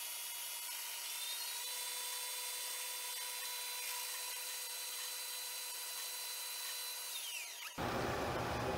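Vertical milling machine taking a skim cut with a face mill on a cold-rolled steel block under table power feed: a steady high machine whine over a thin hiss. A higher tone joins about a second in and glides down in pitch as it stops near the end.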